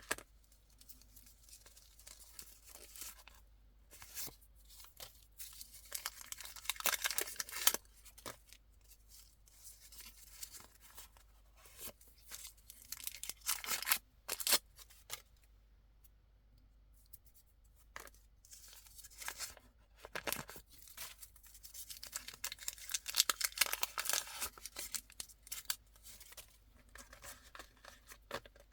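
Candy wrappers and packaging being torn open and crinkled by hand, in several spells of crackly rustling and tearing with quiet gaps between.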